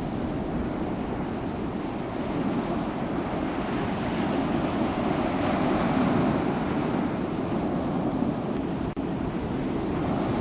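Sea waves washing ashore in a continuous surf wash that swells a little in the middle, with a brief dropout near the end.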